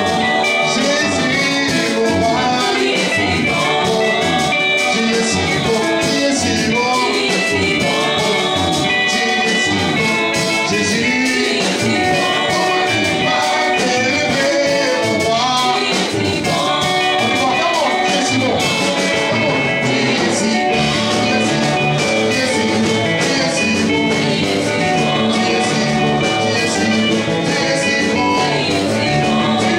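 Upbeat church music with singing over a steady beat.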